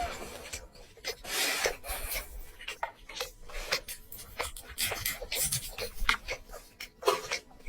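Close-miked eating sounds: irregular wet smacks and clicks of chewing, with a longer rasping rub about a second and a half in.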